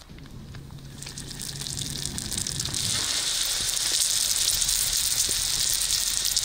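Chive-filled bolani flatbread sizzling as it fries in oil on a wide iron griddle over a wood fire. The sizzle builds over the first few seconds, then holds loud and steady.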